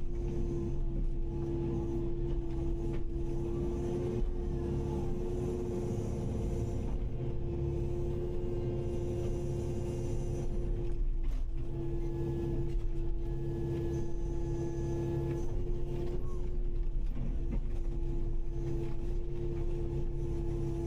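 Kubota KX080-5 excavator's diesel engine running steadily at working speed, a constant humming tone over a low rumble, with a brief dip about eleven seconds in.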